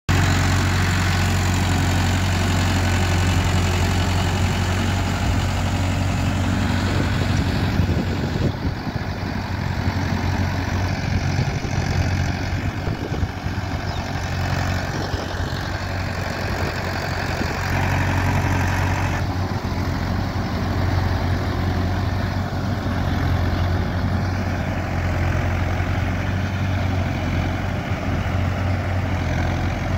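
Mahindra Yuvo 585 4WD tractor's diesel engine running steadily under load as it drives a rotavator through a flooded paddy field, puddling the mud.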